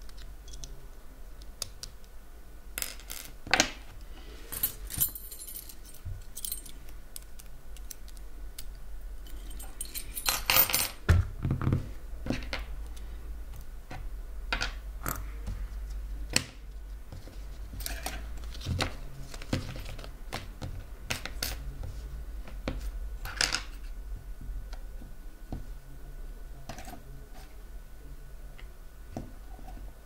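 Small metal parts of a half euro cylinder lock clicking and clattering as it is handled and taken apart by hand, with scattered sharp clicks and a busier run of clatter about a third of the way in.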